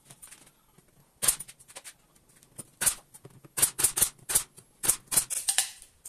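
Pneumatic brad nailer firing nails into MDF panels: about a dozen sharp shots with a hiss of air, starting about a second in and coming quickest in the second half.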